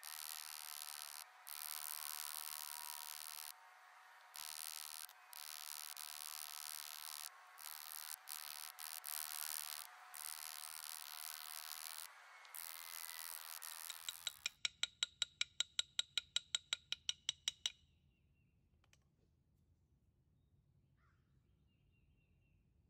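Steady high chorus of insects, broken off abruptly in places. About fourteen seconds in, a quick, even run of about twenty light hammer taps on metal, about six a second, each with a short metallic ring. These taps are the loudest sound and stop suddenly.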